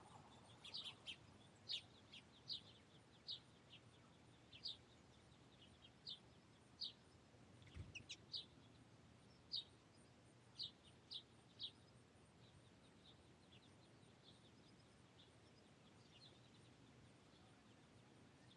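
Finches chirping with short, high call notes, about one or two a second for the first dozen seconds, then only now and then.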